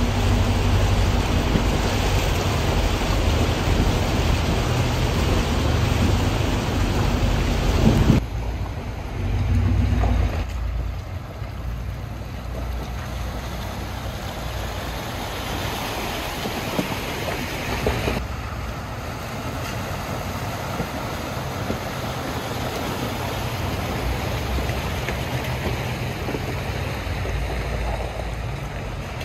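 4x4 vehicles driving slowly through deep water in a flooded stone tunnel: engine rumble with water sloshing and splashing, loudest for the first eight seconds, then a softer steady wash of water noise.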